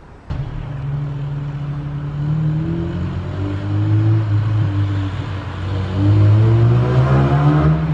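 Car engine accelerating along a street. It starts suddenly about a third of a second in, and its note climbs in pitch over the last few seconds.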